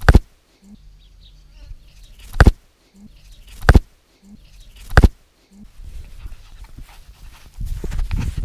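Cavalier King Charles Spaniel puppy giving four short, sharp, very loud barks spaced a second or so apart. After that comes a busier stretch of snuffling and rustling close to the microphone, which grows louder near the end as the puppy noses right up to the camera.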